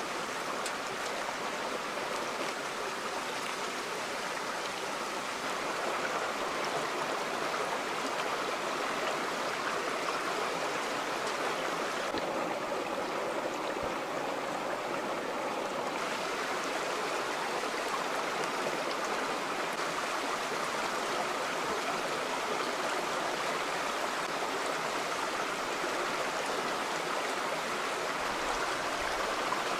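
Shallow river running over a rocky bed, a steady rushing and burbling of water. Its hiss turns duller for a few seconds in the middle.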